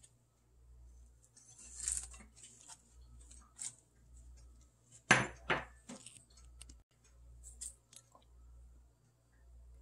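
Kitchen handling sounds: dishes and utensils clinking and knocking at scattered moments, with the loudest knock about five seconds in and a second one just after.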